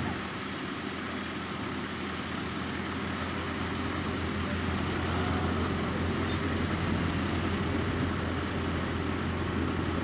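Engine of an older tractor running steadily under load as it pulls a mounted plough through the ground, an even low hum with no change in speed.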